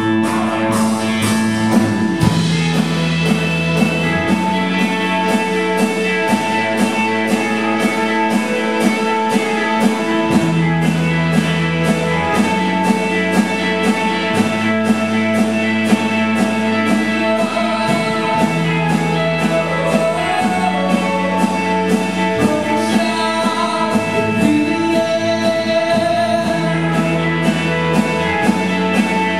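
Live rock band playing a song: electric guitars, bass guitar and drum kit keeping a steady beat, with a male lead vocal.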